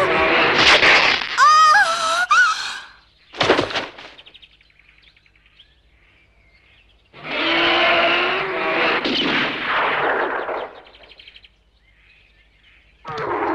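Cartoon action sound effects: a loud clamour at the start, a single sharp rifle shot about three and a half seconds in, then a long bear roar from about seven seconds to just past ten.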